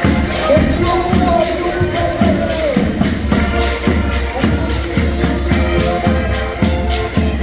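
Lively Portuguese folk dance music played live on diatonic button accordions, with percussion keeping a steady beat.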